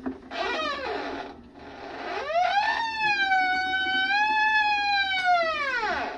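Washing machine door seal squealing: a short squeal falling in pitch, then a long one that rises, holds steady for about three seconds and falls away.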